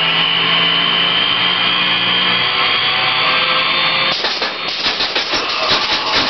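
Electric chair attraction's electrocution sound effect: a steady electrical buzz with a high whine that rises slightly. About four seconds in it turns to a rough, rapidly pulsing rattle as the dummy in the chair shakes.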